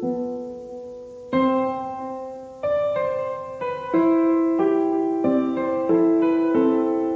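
Background music: a slow, gentle piano piece, chords and single notes struck every half second to a second and left to ring out.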